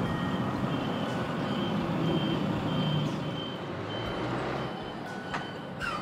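A vehicle's reversing alarm beeping at one high pitch, about two beeps a second, over a low engine rumble.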